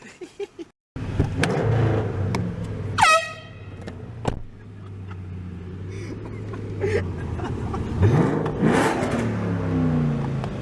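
Car engine running steadily, with one short can air-horn blast about three seconds in whose pitch sags quickly as it dies. Near the end an engine revs up and falls back.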